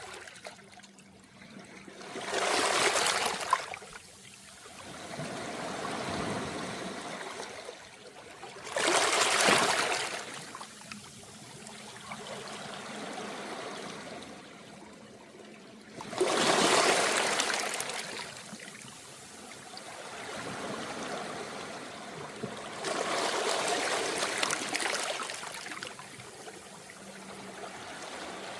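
Small, calm waves washing onto a beach of rounded pebbles, four surges about every seven seconds, each followed by the water draining back with a trickling rush.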